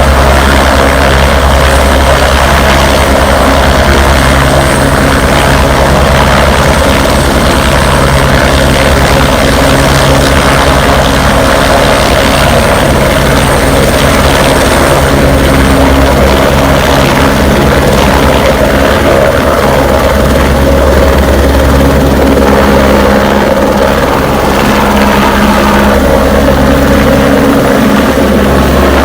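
Air ambulance helicopter's rotor and turbine engine running loud and steady, a deep rotor drone with several steady tones over it.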